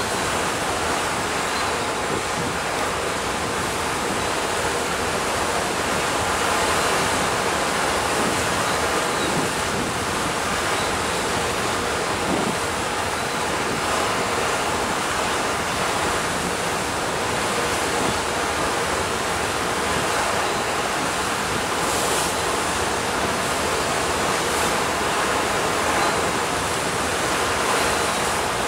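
Steady rush of sea water and wind heard from the deck of a moving ferry, with wind noise on the microphone.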